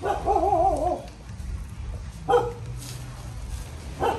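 A dog giving a long whine that wavers up and down in pitch for about a second, then two short barks about two seconds apart.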